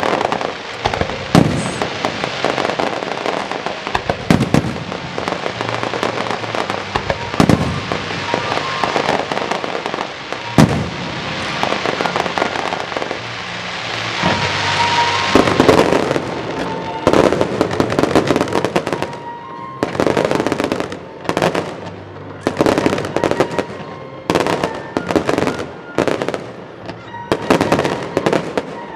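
Aerial fireworks display: shells bursting with heavy bangs a few seconds apart over a running crackle, thickening into a dense crackling barrage about halfway through, then a quick string of separate bangs toward the end.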